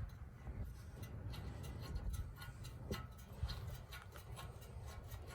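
Ratchet wrench clicking in scattered light ticks as the dirt bike's gas tank mounting bolt is backed out.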